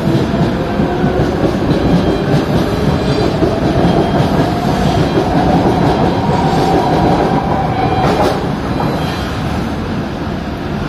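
Kawasaki–Kinki Sharyo C151 metro train pulling away from the station: wheels rolling and clattering on the track, with a rising whine that stops about eight seconds in. The noise eases a little toward the end as the train moves off.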